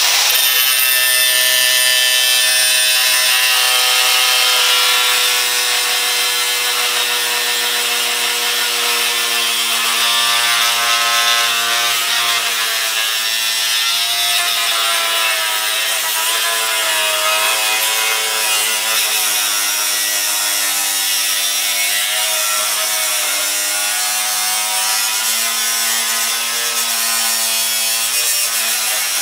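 Festool AGC 18-125 cordless brushless angle grinder cutting through an aluminum bar. The motor's whine runs continuously with a gritty hiss and wavers up and down in pitch as the wheel is pressed into the metal and eases off.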